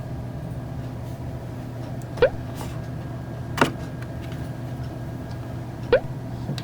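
A steady low hum, broken by three short, sharp rising squeaks and one sharp click.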